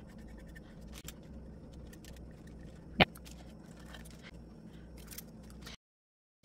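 Quiet handling of craft materials: scissors snipping a paper napkin and faint scrapes, with one sharp click about three seconds in. The sound drops out completely for a moment near the end.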